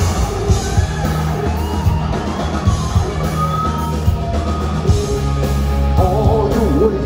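Live rock band playing loudly: electric guitars, bass and drums with a male lead singer, heard from the audience in a concert hall.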